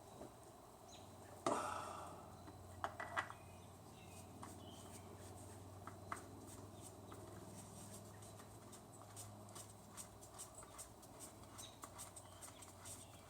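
Faint handling sounds: a sharp knock about one and a half seconds in, a few clicks soon after, then light scattered ticking.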